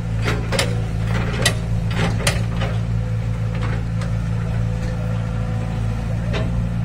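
Excavator's diesel engine running steadily, with a cluster of sharp knocks in the first few seconds and another near the end.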